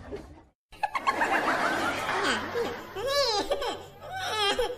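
A person laughing in repeated bursts that rise and fall in pitch, after a brief drop-out to silence about half a second in.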